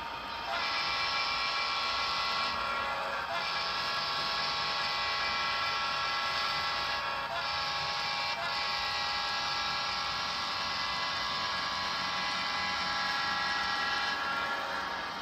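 Tiny onboard speaker of an N-scale Broadway Limited SD40-2 model locomotive sounding its diesel horn chord in several long blasts with short breaks between them, over the decoder's steady engine hum.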